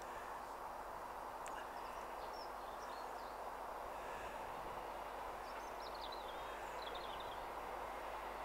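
Small birds chirping in short high phrases, twice, over a steady distant rumble.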